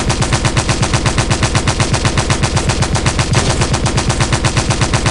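Toy M16-style assault rifle giving out its machine-gun firing sound with the trigger held: a fast, even rattle of shots, about eight a second, that never lets up.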